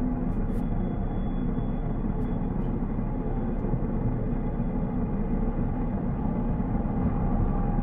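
Steady road and tyre noise heard inside a moving Tesla Cybertruck's cabin, an even rumbling hiss with no engine note.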